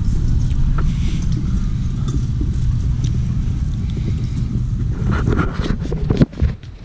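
Steady low wind rumble on a handlebar-mounted action camera's microphone while cycling along a street. It drops away suddenly about six seconds in as the bike stops, followed by a few knocks.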